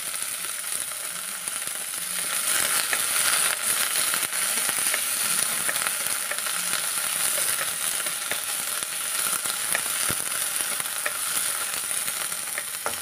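Green chillies, curry leaves, mint, coriander and garlic frying in hot oil in a metal kadai: a steady sizzle with scattered small pops, and the scrape of a wooden spatula stirring them.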